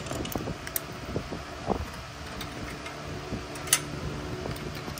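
A steady mechanical hum with scattered light clicks and taps of hand tools on metal, one sharper click about three and a half seconds in.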